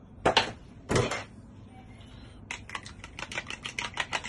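Raw eggs being beaten by hand with a fork in a plastic bowl: two sharp knocks in the first second, then from about two and a half seconds in a quick, even clicking of the fork against the bowl, several strokes a second.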